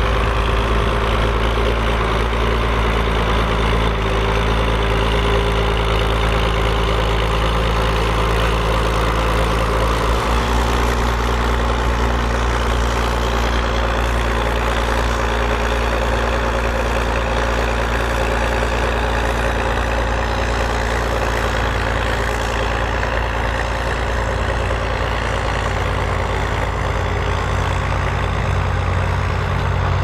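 Ford 8000 tractor's six-cylinder diesel engine running steadily under load as it pulls a five-furrow plough through the soil.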